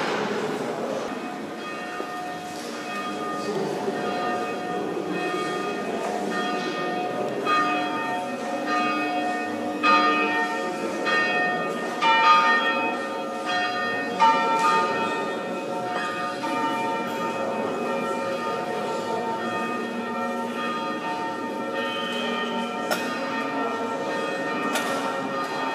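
Church bells ringing in a peal: several bells at different pitches struck again and again, each note ringing on and overlapping the next, with a few louder strikes about midway.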